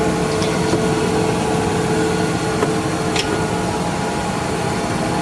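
Metal lathe running steadily, its motor and spindle giving a constant hum, with a few faint high ticks.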